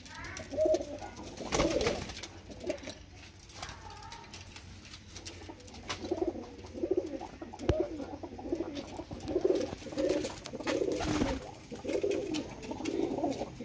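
Domestic pigeons cooing, a long run of low, rounded coos, thickest in the second half, with a few short sharp noises in between.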